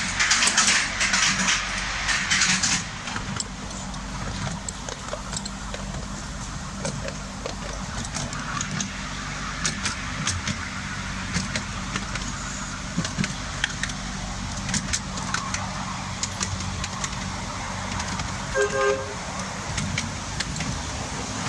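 Miniature railway locomotive running along the track: a steady low engine hum with irregular clicks from the wheels on the rails, louder and noisier for the first few seconds as it leaves a tunnel. About nineteen seconds in, its horn gives one short toot.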